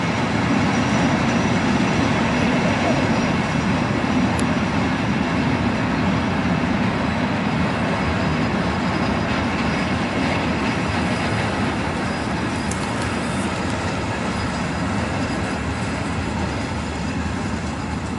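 Freight train of tank wagons running past on the line below: a steady noise of wagons rolling on the rails, easing off slightly near the end.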